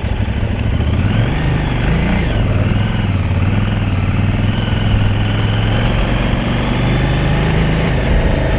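KTM 990 Adventure's V-twin engine running steadily, its pitch rising and dropping briefly about two seconds in, under a constant rush of wind noise on the helmet-camera microphone.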